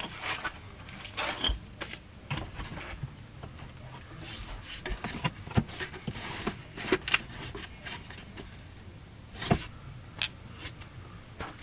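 Scattered knocks, clicks and scuffs of hands and tools working a rear shock absorber loose from its mounts, with a short ringing clink about ten seconds in.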